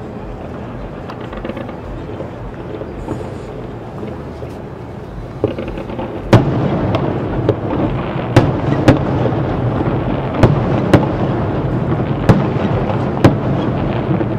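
Aerial fireworks shells bursting. A steady low rumble for the first few seconds, then from about six seconds in a run of about eight sharp, loud bangs over continuous rumbling.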